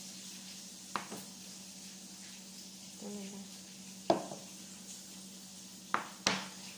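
Steady sizzle of fish frying in oil over a low hum, broken by four sharp knocks of a plastic blender cup being handled on the countertop, about one, four and six seconds in.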